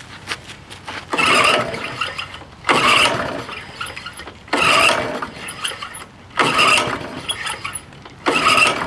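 Honda HR 214 lawnmower being pull-started five times in a row, about every two seconds, each pull cranking the engine briefly without it catching.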